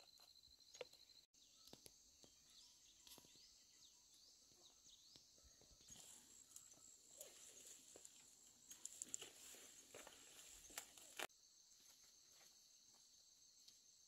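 Near silence: faint steady insect chirring, with faint rustling of leaves and a few light cracks of branches as someone climbs through a tree, busiest from about six to eleven seconds in.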